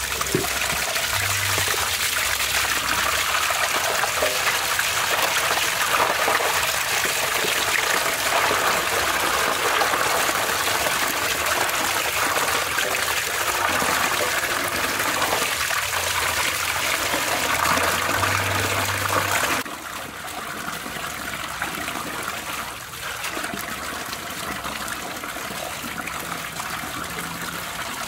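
Water running from a pipe into a large aluminium basin, splashing over raw whole chickens as they are rinsed and rubbed by hand. The running water is steady and drops suddenly to a little quieter after about twenty seconds.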